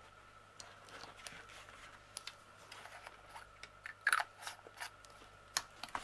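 Small clear plastic screw-top bead storage jars being handled in their case, picked up and set back: scattered light plastic clicks and taps, busiest about four seconds in.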